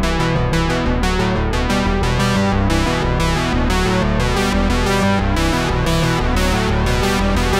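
Background music played on synthesizer and keyboard, with a steady beat.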